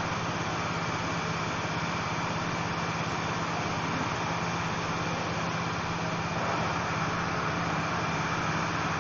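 Steady mechanical hum and hiss of running machinery, with a faint high whine. It grows slightly louder about six and a half seconds in.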